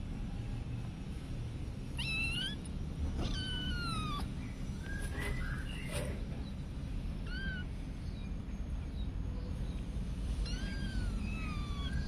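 Kittens meowing: about four drawn-out, high mews that fall in pitch, a few seconds apart, the longest about three seconds in.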